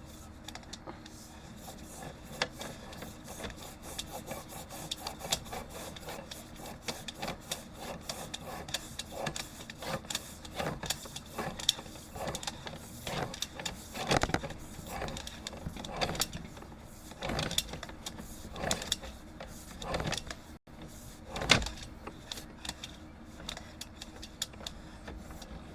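Sewer inspection camera being pushed along a sewer lateral on its push cable, giving irregular clicks, knocks and rubbing as the camera head and cable scrape through the pipe over a steady low background hum.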